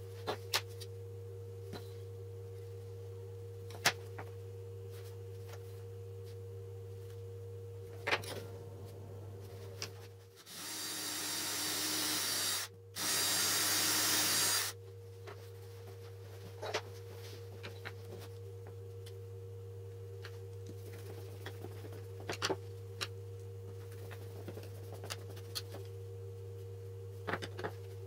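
Cordless drill boring into a small wooden block, running in two bursts of about two seconds each with a brief stop between, about halfway through. Under it a steady low hum, with scattered light taps and clicks of handling.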